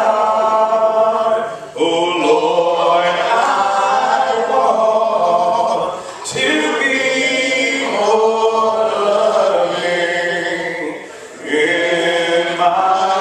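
Church congregation singing a hymn a cappella: many unaccompanied voices in long sustained phrases, with brief breaks between phrases about every four to five seconds.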